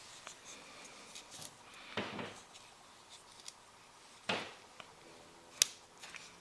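Handling noise from a Victorinox Swiss Army knife: a few faint clicks, soft knocks about two and four seconds in, and a sharp click near the end as a tool snaps into place.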